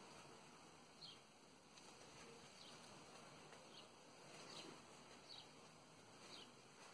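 Near silence: faint room tone with a few faint, short high chirps about a second apart.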